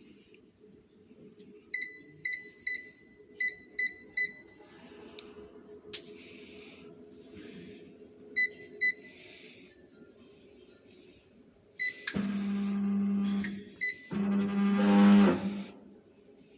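Life Fitness 95T treadmill's Integrity console beeping as its newly replaced keypad is pressed: six short high beeps in quick succession about two seconds in and two more about eight seconds in, showing the keypad now responds. Near the end come two louder, lower buzzing tones of about a second and a half each.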